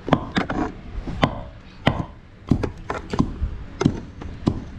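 A pestle pounding in a mortar: about a dozen sharp, unevenly spaced strikes.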